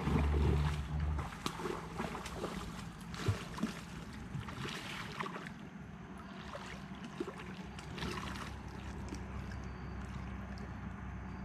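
Irregular splashing and sloshing of water as a hooked catfish is fought in toward the bank, with scattered clicks and rustles. A low rumble sounds for about the first second.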